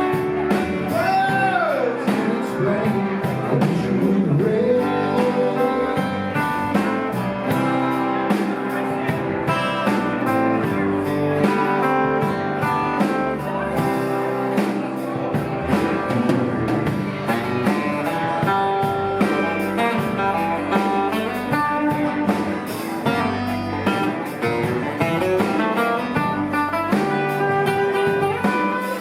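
Live band playing a blues song, guitar to the fore over a steady drum beat, with a long bent note about a second in.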